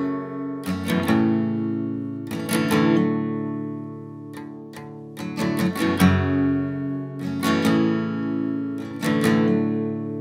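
Background music: slow acoustic guitar, strummed chords every second or two, each left to ring out.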